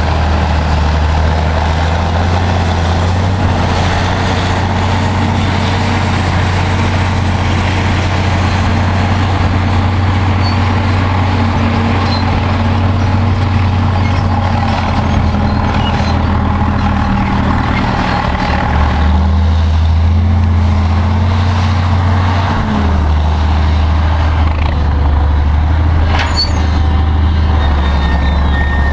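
Heavy diesel engines of a Caterpillar 630B motor scraper and a D7E pusher bulldozer running, a loud, steady low drone whose pitch shifts a couple of times about two-thirds of the way through.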